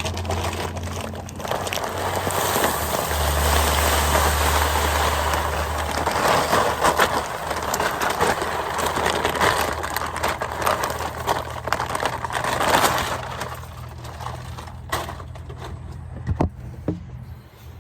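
A 40-pound bag of dry feed grain pouring into a food-grade plastic barrel, a steady rushing hiss of grain that builds about a second in and tails off near the end, followed by a few sharp clicks.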